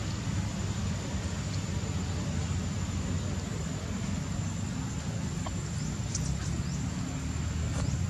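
Steady low rumble of outdoor background noise with a constant faint high whine. A few brief, faint high chirps come near the end.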